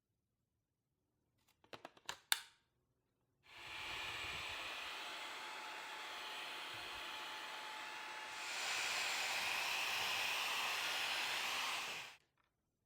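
Cordless stick vacuum: a few clicks, then the motor starts and runs steadily, steps up to a louder setting about halfway through, and switches off near the end.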